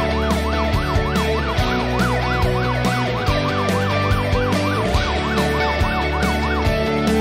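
Rock-style background music with a steady beat, with a siren rising and falling about twice a second laid over it; the siren stops near the end.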